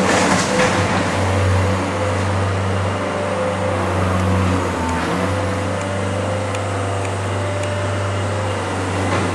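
A motor vehicle's engine running steadily: a low hum with a fainter tone above it over a rushing noise, easing briefly about a second in and again around five seconds in.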